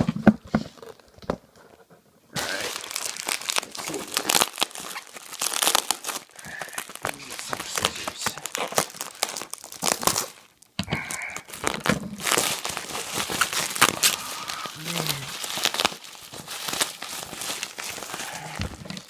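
Packing material being unwrapped and pulled apart by hand: dense, continuous crinkling and tearing, with a brief pause about halfway through.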